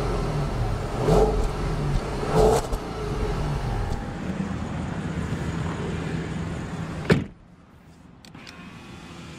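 Audi A8 L 4.2 V8 heard at the exhaust, running with two short rev swells about one and two and a half seconds in, then running steadier. A sharp thump about seven seconds in, after which it is much quieter.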